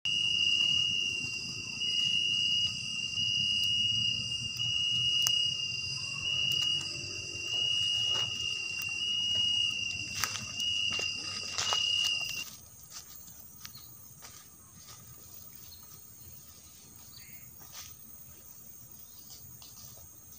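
Insects trilling in one steady high pitch over a low rumble, with a few sharp clicks; about twelve seconds in it all cuts off abruptly, leaving a much quieter background of insects with scattered faint ticks.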